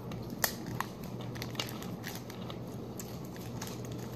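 Crinkly snack wrapper being handled and worked open, giving scattered small crackles and clicks over a low steady hum.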